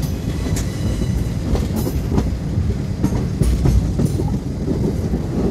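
Darbhanga Express passenger train running, heard from aboard: a steady low rumble with scattered sharp clicks of the wheels over rail joints.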